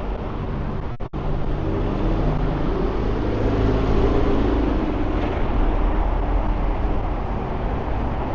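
Road traffic noise, with a vehicle passing that swells louder from about three to five seconds in. There is a brief break in the sound about a second in.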